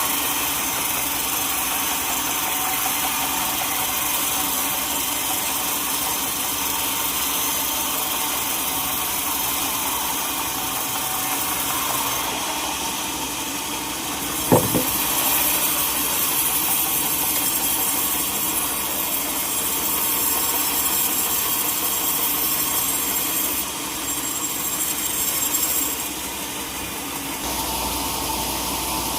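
Sawmill saw running steadily as it cuts a teak log, with a single sharp knock about halfway through.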